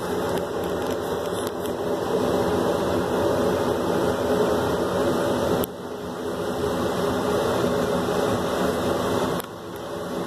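Steady mechanical hum and whir of running aquarium equipment. It drops suddenly about halfway through and again near the end, then builds back.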